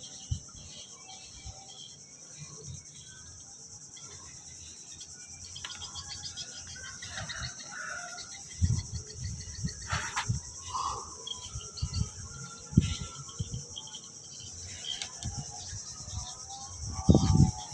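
Steady high-pitched drone of insects. Over it come several dull thumps in a cluster past the middle and again near the end: a caught catfish slapping on wooden jetty planks.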